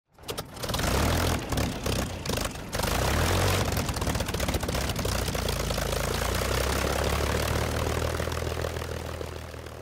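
Propeller aircraft engine running, uneven for the first few seconds and then steady, fading out near the end.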